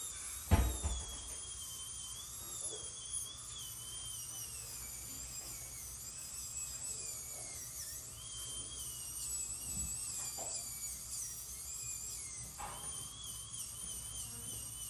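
High-speed dental handpiece whining as it shaves down the teeth. Its pitch sags and recovers as it bears on the tooth, and it stops briefly and starts again near the end. There is a knock about half a second in.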